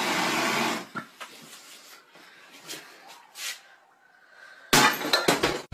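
Hand-held gas torch hissing with its flame lit, cut off abruptly about a second in. After a few quieter scrapes, a loud cluster of short bursts comes near the end.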